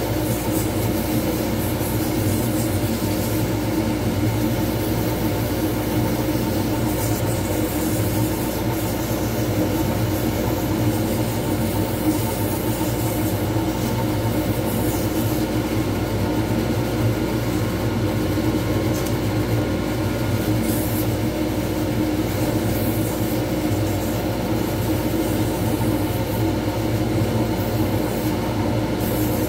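Wood lathe running at a steady speed, spinning a resin pen blank while a paper towel is held against it to apply the finish. A steady machine hum with several held tones and no change in speed.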